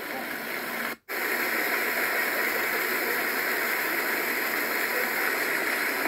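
Fountain water jets spraying and splashing down into the pool, a steady rushing hiss that drops out briefly about a second in.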